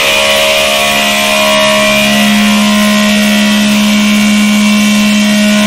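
A chainsaw running steadily at high revs, holding one unchanging engine pitch.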